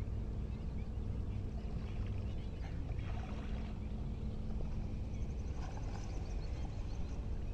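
Steady low wind rumble on the microphone, with faint splashing of shallow salt-pan water.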